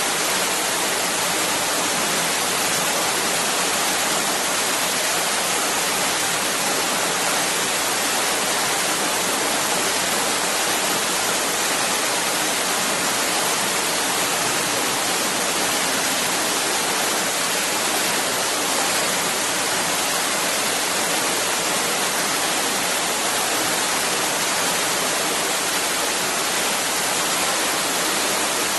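Steady rushing water, an even unbroken roar with no individual splashes or changes.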